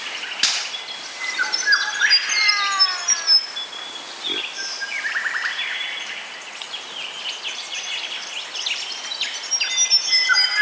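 Morning chorus of several birds: overlapping whistles, chirps and falling runs of notes, thickest a couple of seconds in and again near the end.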